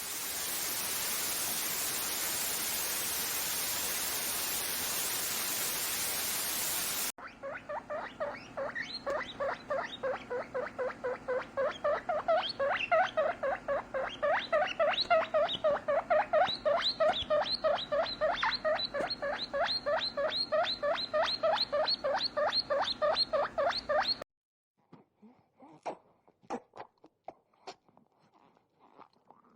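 A steady hiss for about the first seven seconds cuts off suddenly, followed by a long run of rapid guinea pig squeaks at about three a second, the happy noises of a guinea pig drinking milk while being squeezed. The squeaks stop abruptly near the end, leaving only a few faint clicks.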